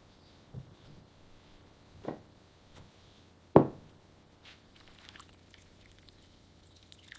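A few separate knocks of kitchen things being handled, the loudest about three and a half seconds in, with faint ticks after it over quiet room tone.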